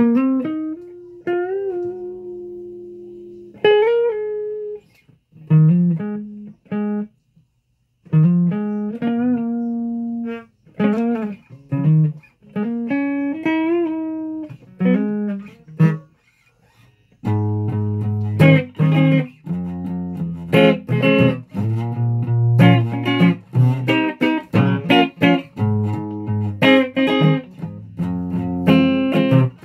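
Guitar played solo. Single plucked notes with pitch bends and slides come first, broken by short pauses. From about halfway it turns to faster picked notes and chords.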